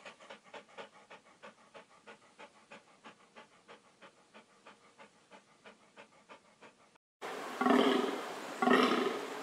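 A grey wolf panting, about three breaths a second, slowly growing fainter. About seven seconds in, a reindeer gives two loud grunts about a second apart.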